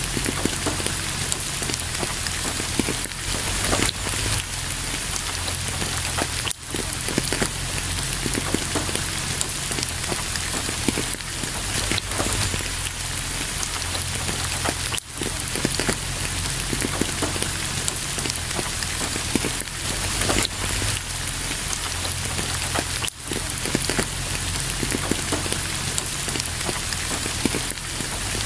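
Steady, heavy rain falling and pattering, a dense even hiss of many drops, dipping briefly about every eight seconds.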